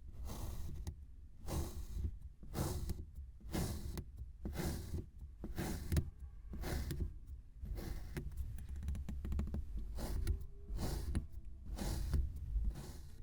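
Kinetic sand being squished and crushed by hand, a short soft crunch roughly once a second over a low handling rumble.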